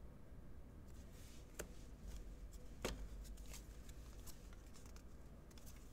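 Faint clicks and light rustles of trading cards being handled and slid against one another, with two slightly sharper clicks a second or so apart early on.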